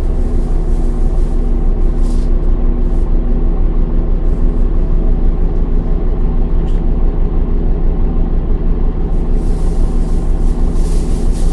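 MAN D0836 inline-six diesel engine of a Solaris Urbino 10 II city bus running at a steady, unchanging speed, typical of idling, with a low rumble. A hiss rises near the end.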